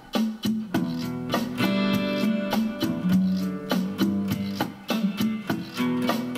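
Song intro: acoustic guitar playing chords over a steady, clicking percussion beat, the guitar growing fuller about a second and a half in.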